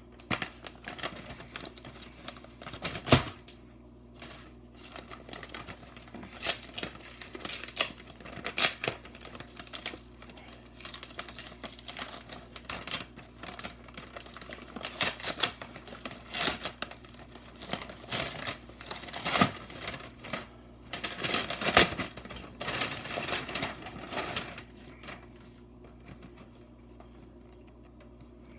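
Carded toy packaging being handled: irregular crinkling and clicking of stiff plastic and card, with a sharp knock about three seconds in and a longer crinkling spell a little after twenty seconds, dying down near the end.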